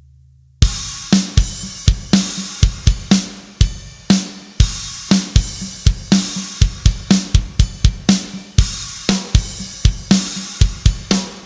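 Sampled acoustic drum kit from EZdrummer 3's Big Stage EZX library playing a steady groove of kick, snare and cymbals. It comes in about half a second in, as a low bass tone dies away.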